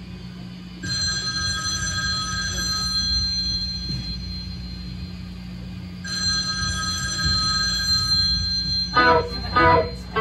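Electric guitar through an amplifier ringing out bell-like chiming notes twice, each starting suddenly and fading over a few seconds, over a steady amplifier hum; two short, louder hits near the end.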